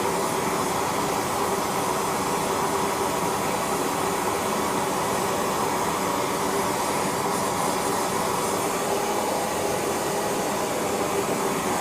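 Steady rushing drone of a gas burner heating the melt for silver casting, even and unbroken throughout.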